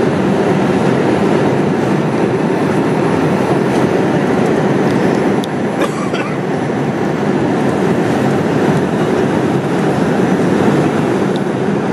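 Airliner cabin noise in cruise: a steady deep rush of jet engine and airflow past the fuselage, heard from a window seat, with a few faint clicks near the middle.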